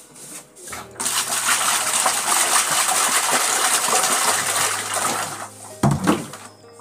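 Water poured from a plastic jerrycan into a plastic basin: a steady splashing gush lasting about four seconds. It fades out and is followed by a couple of dull thuds.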